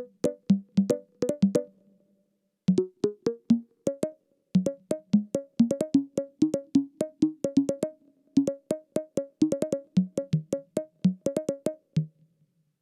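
Fred's Lab Manatee synthesizer playing a preset: short plucky notes, each with a click on the attack, played in a quick melodic run. There is a brief pause about two seconds in, and the playing stops shortly before the end.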